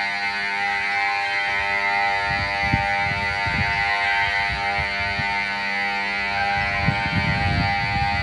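Station platform emergency-stop alarm buzzer sounding without a break, one steady buzzing pitch: the signal that the platform emergency stop button has been pressed and trains are halted. A few low bumps come through about two seconds in and again near the end.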